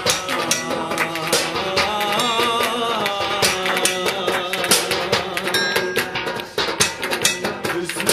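Instrumental break of a Turkish folk-style band song: brisk drum and percussion strikes under a wavering melody line, with a plucked string instrument taking over near the end.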